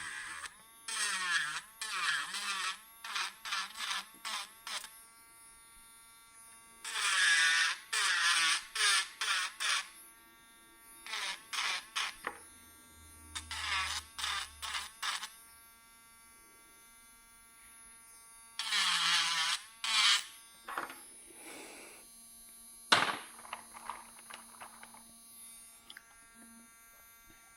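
Small electric sanding tool grinding excess cured resin off a resin jewelry piece in repeated short bursts, a high whine each time it bites, with quieter gaps between. A sharp click sounds near the end.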